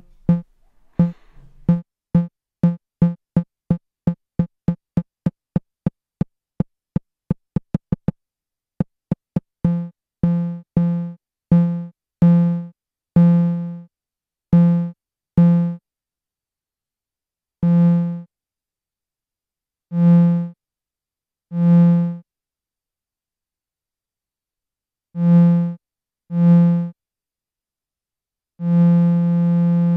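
Eurorack modular synthesizer tone, a low note with many overtones, triggered again and again through a function generator's attack-decay envelope. It starts as very short clicks about three a second. From about ten seconds in it becomes longer notes at uneven gaps that swell and fade as the rise and fall times are turned up, and it ends on a long held note.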